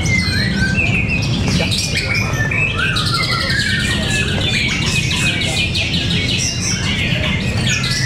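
Several caged white-rumped shamas (murai batu) singing at once, competing against each other with overlapping whistles and chattering phrases. A fast run of repeated notes comes in the middle, over a steady low hum.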